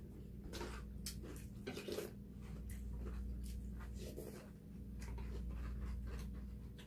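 Eating at the table: chewing of rice balls and scattered light clicks of spoons and chopsticks against bowls, over a steady low hum.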